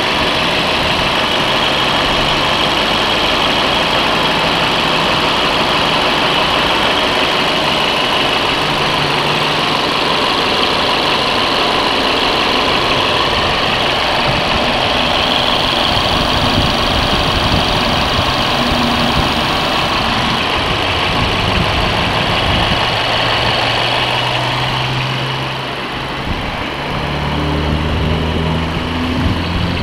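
Mazda 6's 2.0-litre Skyactiv-G four-cylinder petrol engine running steadily. Near the end the high hiss fades and a deeper hum takes over.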